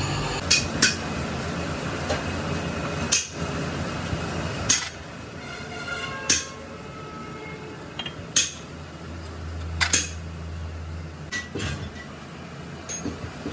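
Hammer striking metal: sharp blows at irregular intervals of one to two seconds, some in quick pairs, each with a short metallic ring, over a steady low hum.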